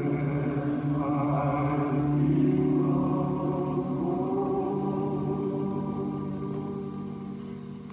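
A spiritual being sung in long, held notes, fading away near the end.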